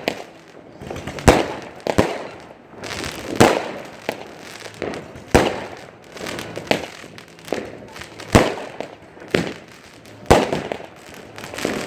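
Fireworks display: a dozen or so sharp bangs at irregular intervals, about one a second, each trailing off in crackle and echo.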